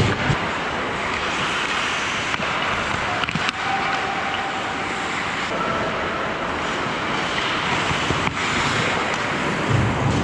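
Ice hockey rink sound close to the goal: a steady scraping hiss of skates on the ice, broken by a few sharp clacks of sticks and puck.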